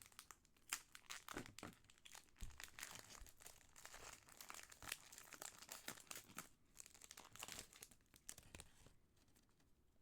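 Pokémon card booster pack wrapper crinkling and tearing as it is opened: a dense run of sharp crackles that dies down near the end.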